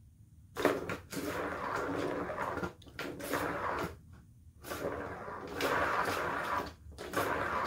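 A ball rolling fast around the plastic circular track of a Turbo Scratcher cat toy, in runs of a second or two broken by short pauses as a cat bats it along. A sharp knock sounds near the start.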